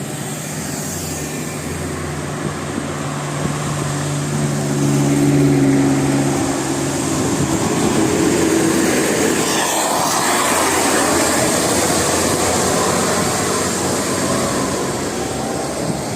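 A bus passing close by: a steady low drone swells for about seven seconds, then a broad rush of passing noise peaks around ten seconds in.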